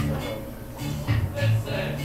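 Electric bass guitar played through an amp, a few separate low plucked notes.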